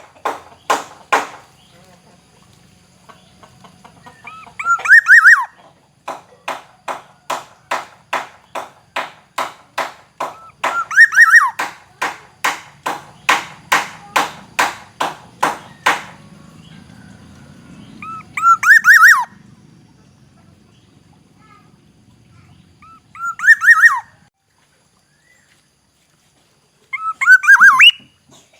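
Black-naped oriole giving short fluty whistled phrases, five of them spaced several seconds apart. Between the second and third phrases comes a fast run of short harsh notes, about two a second, lasting some ten seconds.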